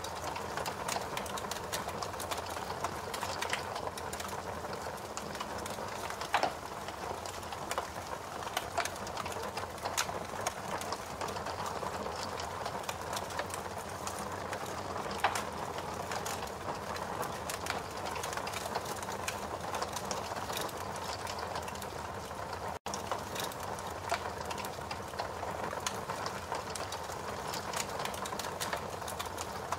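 Fire crackling: a steady hiss with many small sharp pops and crackles scattered through it, a few of them louder. The sound drops out for an instant about two-thirds of the way through.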